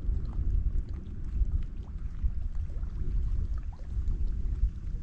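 Wind buffeting the built-in microphone of a GoPro Max camera: a gusty low rumble, with faint scattered ticks above it.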